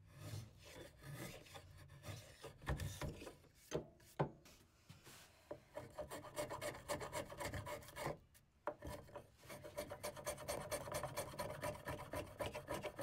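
Wood River low-angle block plane shaving white oak box sides and splines flush by hand: a run of short scraping strokes, sparse at first and then coming quickly one after another.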